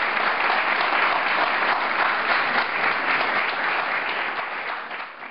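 Audience applauding: dense clapping from many hands, dying away near the end.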